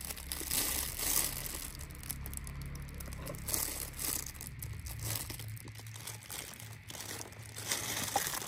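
Steady rustling and crinkling of plastic as fruit is cut with a knife and handled in a plastic-gloved hand.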